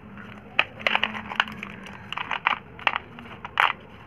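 Loose slate pencils clicking and clattering against each other as hands stir through a tub heaped with them: a dozen or so sharp, irregular clicks.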